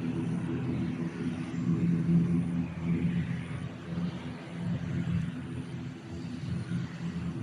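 An engine runs steadily with a low hum that swells and eases a little.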